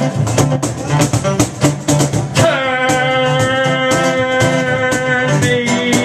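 Beatboxing into a handheld microphone over live electric guitar, with quick sharp percussive clicks. A long held note that slides slightly down runs through the middle.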